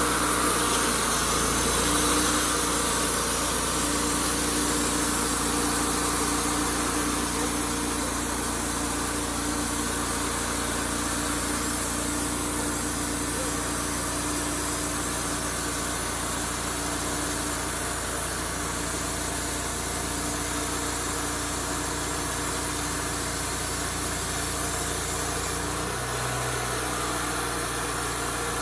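Wood-Mizer LT35HD portable band sawmill running steadily, its engine driving the band blade through a pine cant. The low part of the sound shifts slightly near the end.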